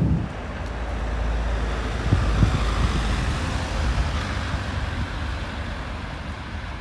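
Road traffic ambience: a steady low rumble with a hiss of passing vehicles. Two soft low thumps come a little after two seconds, and the whole sound slowly fades toward the end.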